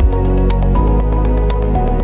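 Electronic background music: sustained synth chords over a held bass, with the drum beat dropping out at the start.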